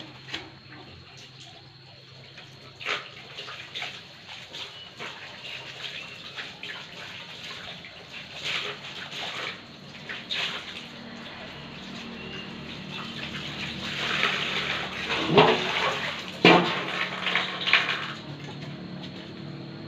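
Water splashing and sloshing as stand-fan parts are washed, with scattered small knocks and clatters. It grows louder in the second half, with two louder splashes in the last third.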